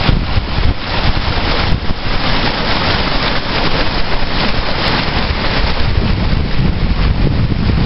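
Shallow stream rushing and splashing over rocks close to the microphone, a loud steady wash of water, with a fluctuating low rumble of wind on the microphone.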